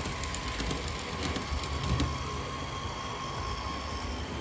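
H0-scale model train running on the layout's track: a steady rolling rumble with a faint steady whine that fades out near the end, and a few light clicks from wheels over rail joints.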